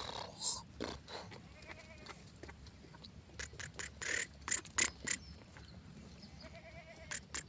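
Goats bleating: two wavering calls, one about two seconds in and one near the end. Between them comes a cluster of sharp clicks and knocks, the loudest sounds here.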